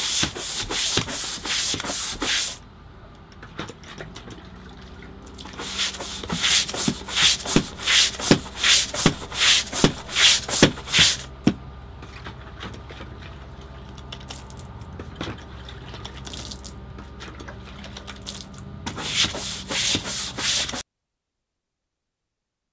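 Medium-bristle deck brush scrubbing a teak deck: three runs of quick back-and-forth rasping strokes, about two a second, with pauses between them. The sound cuts off near the end.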